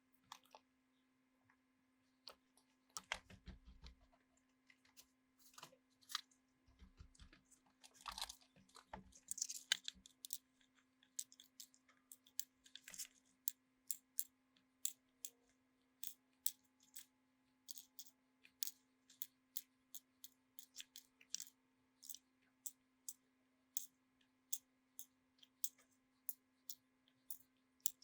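A run of small, sharp clicks, roughly one a second, with a few louder rustling handling noises in the first ten seconds, over a faint steady hum.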